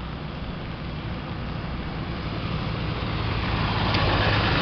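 A pickup truck coming up from behind on a wet road. Its engine and the hiss of its tyres on the wet pavement grow steadily louder as it nears.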